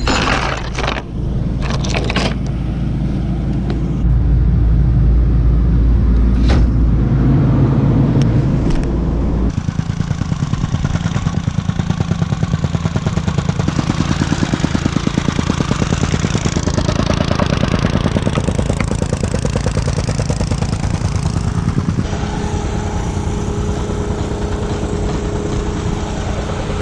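Diesel engine of heavy construction equipment running steadily, with a few sharp clanks in the first few seconds; the engine sound changes abruptly twice.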